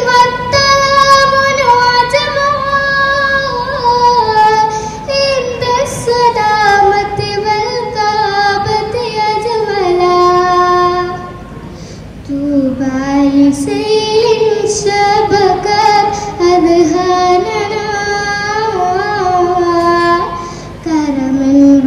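A girl singing an Arabic poem solo and unaccompanied, in long held notes that slide and waver in pitch. About halfway through she drops to a softer, lower note before rising again.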